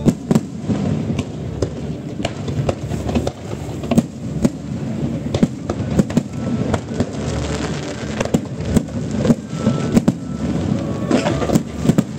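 Aerial fireworks shells bursting in quick, irregular succession, sharp booms about twice a second over a continuous low rumble.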